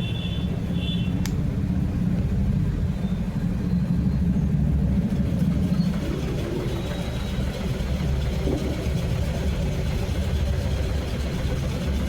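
Steady low rumble, like a running engine, with a short run of high electronic chirps in the first second and a single click just after.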